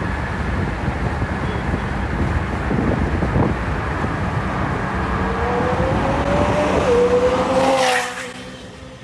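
A sports-car engine running loud and close, its note climbing over the last few seconds. It then drops away sharply with a short sharp noise near the end.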